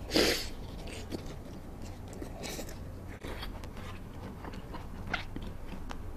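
Close-miked eating sounds of a person chewing food: a loud noisy burst just after the start, then scattered small wet clicks and chews.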